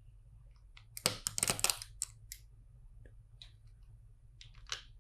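Plastic LEGO bricks clicking and clattering as pieces are handled and pressed together, in a quick run of clicks about a second in, then a few single clicks near the end.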